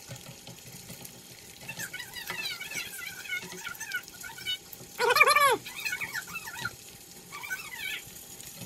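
Eggs frying in a nonstick pan while a plastic spatula scrapes and pushes at them. About five seconds in, a loud, high-pitched call rises and falls, with smaller chirping calls a couple of seconds before it.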